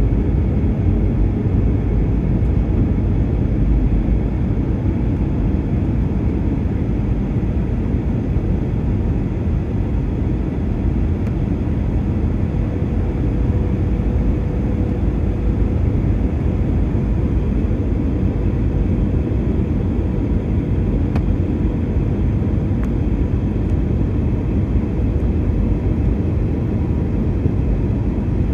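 Airliner cabin noise during the approach: a steady rumble of engines and airflow, with a faint steady hum that grows slightly stronger about halfway through.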